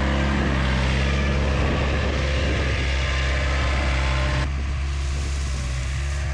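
Skid steer loader's engine running steadily under load, a deep even hum with a hiss of noise on top that eases a little about four and a half seconds in.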